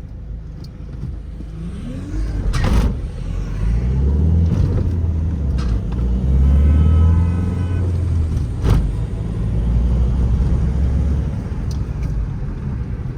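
Mahindra XUV500's mHawk turbo-diesel engine pulling under acceleration. It builds from about two seconds in, runs loud for several seconds and eases near the end, with a faint turbo whistle in the middle and a couple of knocks from the road.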